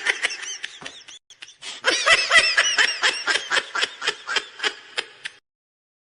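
Laughter meme sound: a high-pitched giggling laugh in quick, rhythmic bursts. It dips briefly about a second in, picks up again, then dies away and stops about five seconds in.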